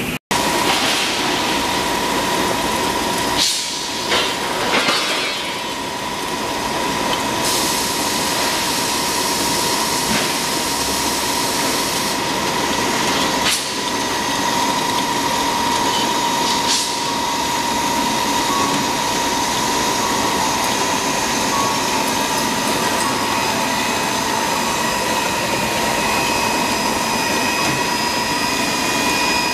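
Steel bar pre-straightening, peeling and fine-straightening line running: a steady loud machine noise with a constant mid-pitched whine, broken by a few sharp metallic knocks.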